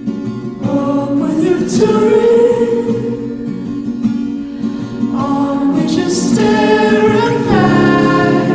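Background music: sung vocals, with held notes that glide in pitch, over acoustic guitar.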